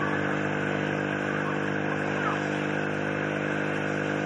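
An engine-driven water pump running at a steady, unchanging speed, feeding a hose that throws a jet of water.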